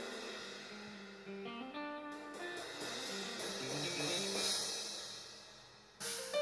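Live band sound check: an instrument plays a run of single notes that step up and down, with a cymbal ringing in the middle and a sudden loud hit about six seconds in.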